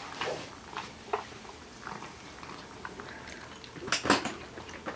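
A dog and a cat eating dry kibble from bowls set in a terrazzo feeding stand: scattered crunching and clicks of food and teeth against the bowls, with a louder clatter about four seconds in.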